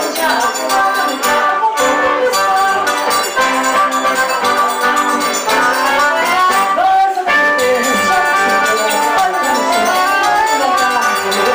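Live forró music: a band with accordion, guitar and zabumba drum playing a steady, danceable rhythm.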